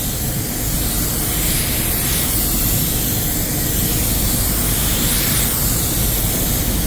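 Walcom Slim X Light spray gun with a 1.3 nozzle spraying water-based paint, its fan fully open for a heavy second coat: a steady, even hiss of air and atomised paint.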